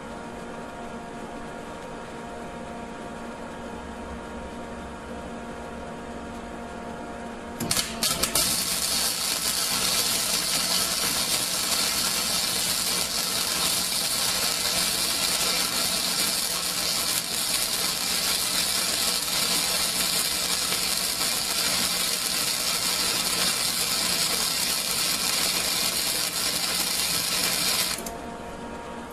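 Lincoln Weld Pack 100 flux-core wire-feed welder pulling a bead along a bevelled butt joint in steel flat bar. After a steady low hum for the first seven or eight seconds, the arc strikes with a couple of short sputters, then crackles steadily for about twenty seconds and cuts off abruptly near the end.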